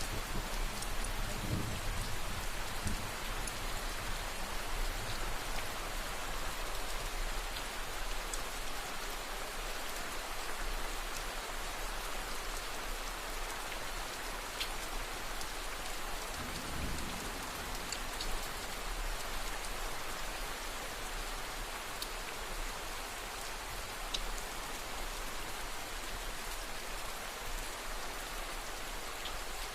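Steady heavy rain, an even hiss with scattered sharp drop ticks. The low rumble of distant thunder dies away in the first few seconds, and a brief low rumble comes again about 17 seconds in.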